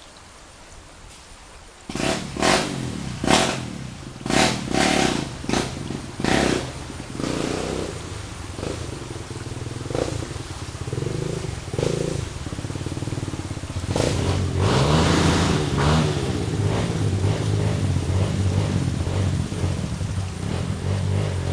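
Dirt bike engine coming in about two seconds in with a string of short, sharp revs, then running on louder and more continuously, its pitch rising and falling.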